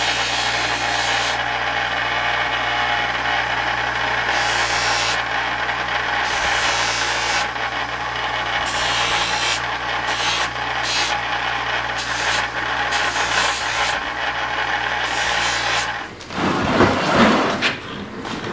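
Powertec bench buffer running with a steady motor hum while a small part is held against its buffing wheel, the rubbing hiss swelling and easing with the pressure. The buffer sound cuts off about 16 seconds in, followed by knocks and scraping of a plastic case being pulled off a shelf.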